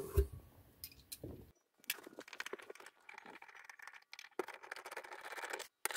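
Bolts being worked loose from a metal mounting bracket inside a wooden cabinet: runs of fine rapid metallic clicking and scraping from about two seconds in.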